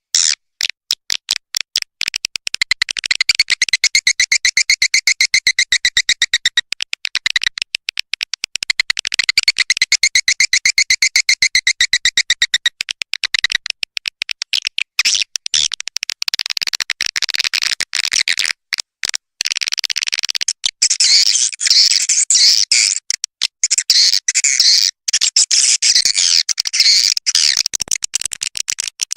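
Swiftlet lure-call recording, an 'external' track meant to draw swiftlets to a nesting house. Dense, rapid, high-pitched chirping and clicking, with spells of thicker twittering.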